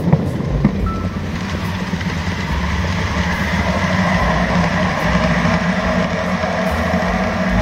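Running noise of an N-gauge model train picked up by a camera car riding on it: a steady hum from the locomotive's motor and the rumble of small wheels rolling on the rails, with a couple of sharp clicks in the first second like wheels crossing rail joints.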